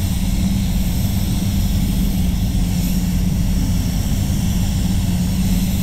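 Steady low drone of spray booth ventilation with the even hiss of a gravity-feed paint spray gun's air as it sprays paint onto a car panel.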